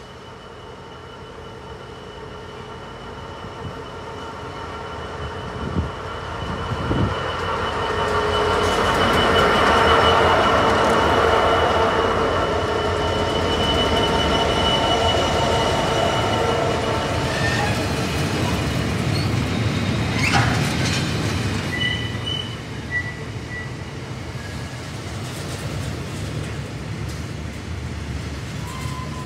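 Class 66 diesel freight locomotive with its two-stroke V12 engine approaching and passing, growing louder to a peak about ten seconds in. A long rake of tank wagons follows, rumbling past with steady rhythmic wheel clatter and a few brief wheel squeals.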